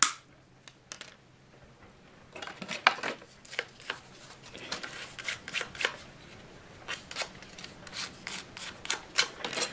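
Wooden coffee stirring sticks being trimmed by hand into small capping-stone pieces: a run of short, irregular scraping strokes, starting about two seconds in.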